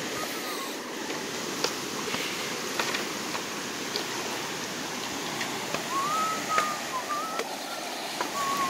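Steady rush of a muddy creek running high after rain, with water swirling and splashing around a trekking pole pushed into it and a few sharp clicks.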